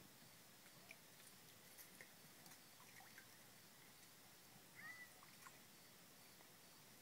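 Near silence: faint outdoor ambience with a few scattered soft ticks and one brief high chirp about five seconds in.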